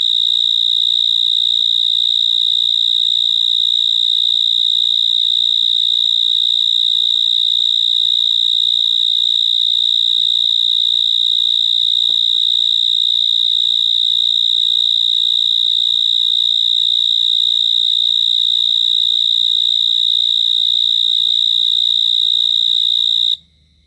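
A night-singing insect's loud, unbroken high-pitched trill, held at one steady pitch, which cuts off suddenly near the end.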